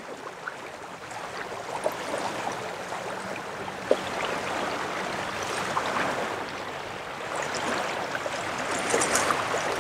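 Water rushing and splashing along the hull and wake of a fishing kayak moving through river current, a steady hiss that slowly swells, with a few small splashy clicks.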